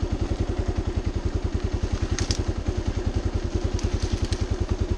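Kawasaki KLR650's big single-cylinder four-stroke engine idling, an even thump at about a dozen beats a second. A few light clicks sound over it, about two and four seconds in.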